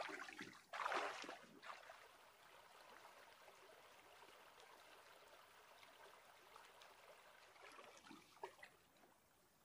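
Two loud splashes in shallow water in the first two seconds, then the steady rush of a shallow river riffle running over rocks.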